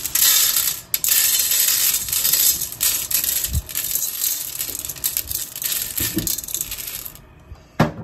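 Dry cat kibble poured from a plastic cup onto a stainless steel tray: a continuous dense clatter of pellets on metal for about seven seconds, with a brief break about a second in. A single sharp click comes near the end.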